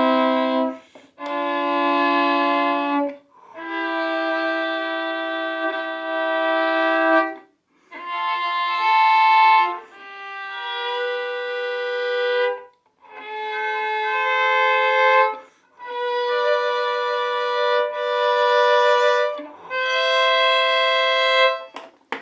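Violin playing a series of about seven held double stops in thirds, each a couple of seconds long with short breaks between, steady in pitch without vibrato: thirds bowed as intonation practice in imitation of two-tone car horns.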